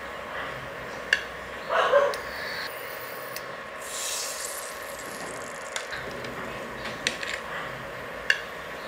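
Metal kitchen tongs clicking as tomato rings are picked up and set into a stainless-steel pan, with a short sizzle about four seconds in as a ring meets the oil. A dog barks once in the background near two seconds in.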